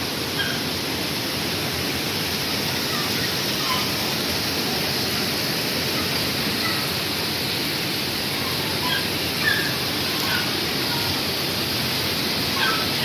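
Steady rain hiss. A few faint, short, higher-pitched sounds are scattered through it, the clearest about halfway through and near the end.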